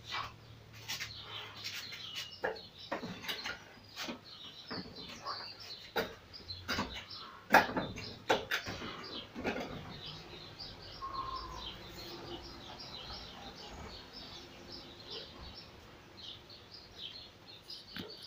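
Irregular sharp wooden knocks over the first half, the loudest about seven and a half seconds in: forearms and palms striking the arms and trunk of a wooden Wing Chun dummy. After that, small birds chirp steadily.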